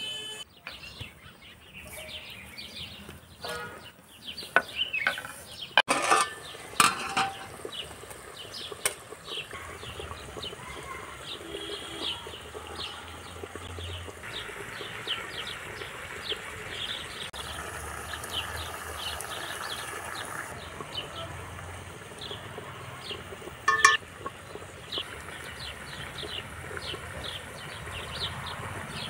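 Metal spoon and pot lids clinking against metal cooking pots in a few sharp knocks, the loudest a few seconds in and one near the end, over birds chirping repeatedly in the background.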